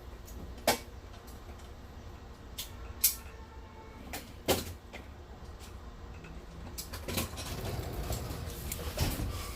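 A cardboard package being handled and cut open with a razor knife: three sharp clicks or knocks, a few smaller ticks, then steadier rustling of packaging near the end.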